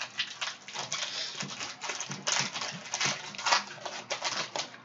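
A Panini Prizm retail pack's foil wrapper crinkling and crackling in the hands as it is opened and the cards are slid out: a dense run of sharp rustles.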